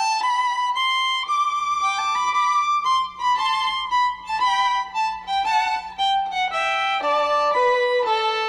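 Outro music: a solo violin playing a melody of held notes that step up and down in pitch.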